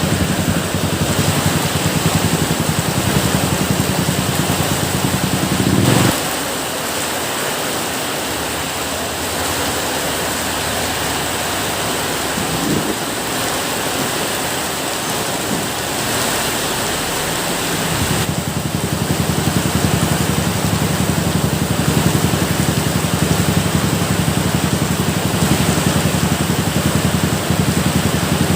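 Steady, heavy rain hissing. Under it runs a low, steady rumble that stops about six seconds in and returns about two-thirds of the way through.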